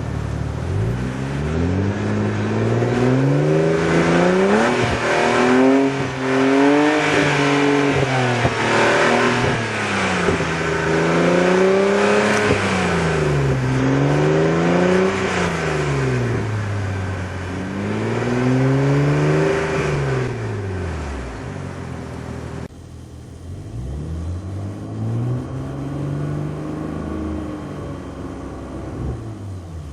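BMW 135i's turbocharged inline-six running through an aftermarket Berk Technology exhaust, its pitch climbing and dropping over and over as the engine is revved up and let back down. About two-thirds of the way through the sound cuts abruptly to a quieter take with more rises and falls.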